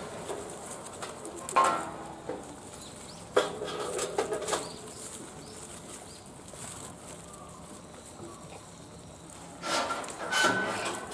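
Sika deer feeding on leafy branches: bursts of rustling leaves and twigs with some clatter, the loudest about ten seconds in, with a few faint bird chirps.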